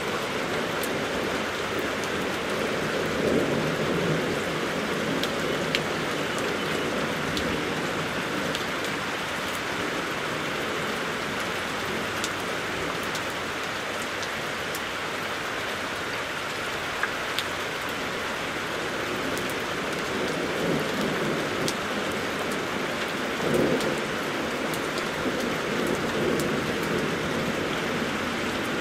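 Steady rain falling, an even hiss with scattered individual drops ticking on surfaces. A low rumble swells up twice, the second time loudest.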